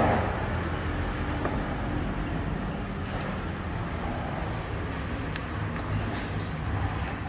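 Steady low background rumble like road traffic, with a few faint light clicks.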